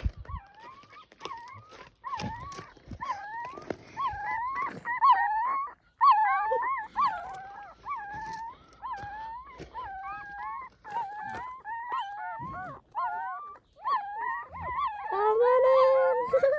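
Puppies whining and whimpering: a steady string of short, high, wavering cries, one after another, crowding together near the end.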